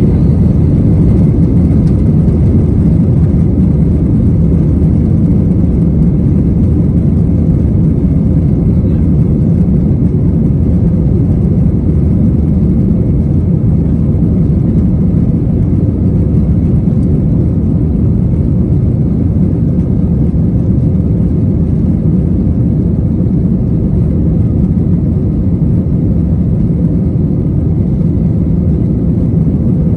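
Airbus A321-200 heard from inside the cabin as it rolls on the ground with its jet engines running: a loud, steady low rumble.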